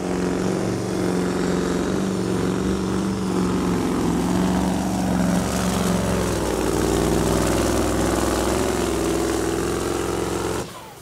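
Loud, steady motor drone made of several stacked tones. Some of the tones shift down in pitch about six seconds in, and the drone cuts off abruptly near the end.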